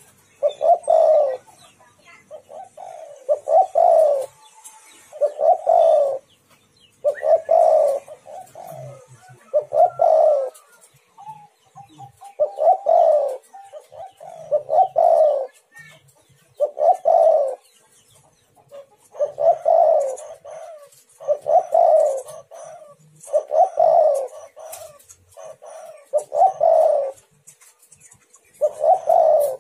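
Spotted dove (tekukur) cooing over and over, a throaty multi-note coo phrase repeated about every two seconds. This is the male's advertising call, used as a lure to make other tekukur answer.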